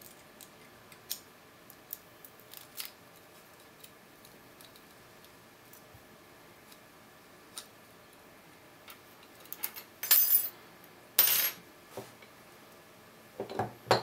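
Lock picks and a tension wrench working in the keyway of a Godrej disc padlock: faint metallic ticks for most of the time, then two louder metal scrapes and rattles about ten and eleven seconds in. Near the end comes a short clatter as the padlock and tools are set down on the wooden table.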